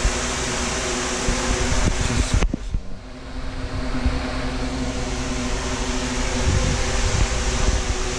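A running fan's steady rush of air with a low motor hum. The hiss drops out suddenly about two and a half seconds in and swells back over the next second.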